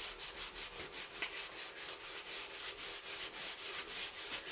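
Hand sanding on a car body panel: quick, even back-and-forth strokes, about five a second.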